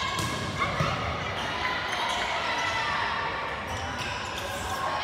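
A basketball bouncing on a gym floor, with irregular low thumps under the steady chatter of a crowd.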